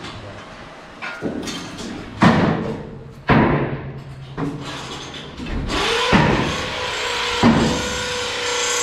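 Two sharp metal knocks a couple of seconds in, then a handheld power drill running steadily with a steady whine through the last few seconds while pipe hangers are fastened under the parlor's stall rail.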